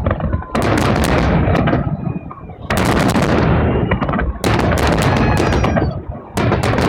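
Fireworks display, loud volleys of shell bursts about every two seconds, each a dense cluster of bangs and crackle.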